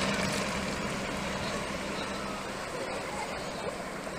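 Steady motor drone with a constant low hum, easing slightly in level over the first couple of seconds.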